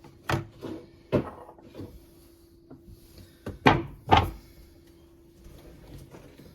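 A series of hard knocks and clatters of refrigerator parts and containers being handled and pulled out. The two loudest come close together a little past the middle, with a faint steady hum underneath.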